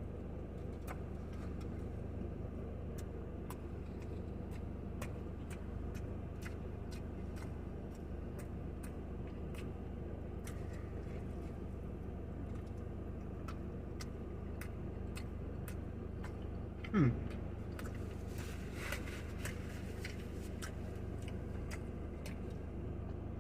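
Chewing a burrito, with soft wet mouth clicks scattered through, over a steady low hum. A short low 'mm' comes about seventeen seconds in.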